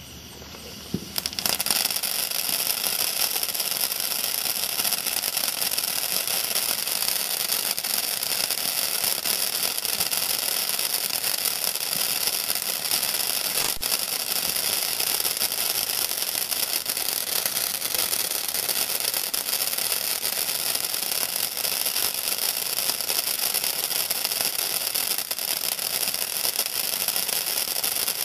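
Ground fountain firework (Winda Fire Fighter P3104) spraying sparks with a steady crackling hiss that starts in full about a second and a half in, after a brief quieter sputter.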